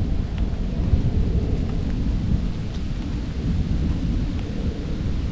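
Steady low rumble of wind buffeting the microphone, with a few faint crackles of dry leaves underfoot.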